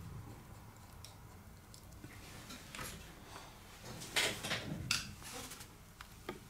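Faint clicks and rustling of small tools being handled on a workbench, with two sharper clicks about four and five seconds in.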